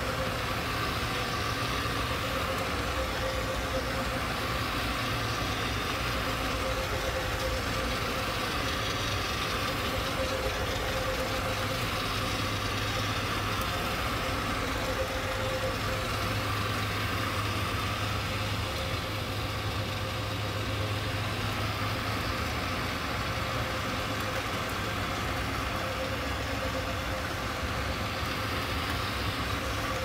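Electric low-moisture (dry) carpet-cleaning machine running steadily as it is worked over low-pile carpet: a constant motor hum with a steady hiss over it.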